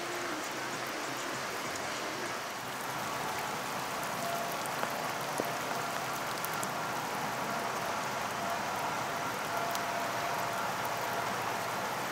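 Steady hiss of rain falling on the river. From about three seconds in, a faint, even machinery hum sits under it.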